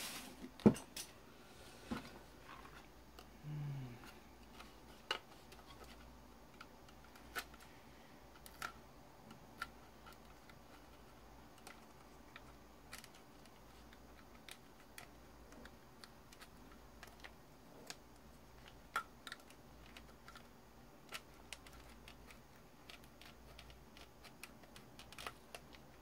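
Scattered light clicks and taps of hard plastic parts being handled and pried as the motor section of a Dyson cordless vacuum is taken apart, with one sharper click about a second in.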